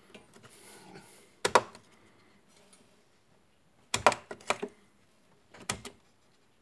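RAM modules being unclipped from their motherboard slots and handled: sharp plastic clicks of the slot latches and modules, one about one and a half seconds in, a quick cluster around four seconds, and a couple more near six seconds.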